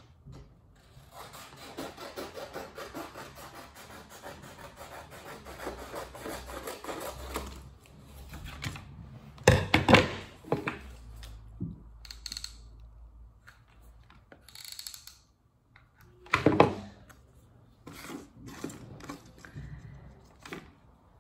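Scissors cutting through stiff construction paper for several seconds, then paper rustling and handling, with two loud knocks on the table, the first about ten seconds in and the second some six seconds later.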